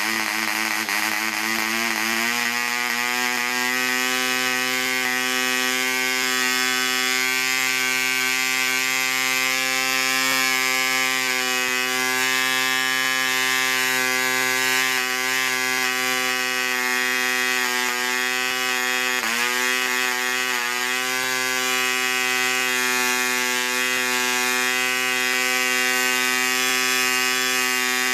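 PAW 100 1 cc two-stroke model diesel engine running at high speed with a high-pitched buzz. Its pitch rises over the first couple of seconds as the compression screw on top is turned, then holds steady. It dips briefly about two-thirds of the way through.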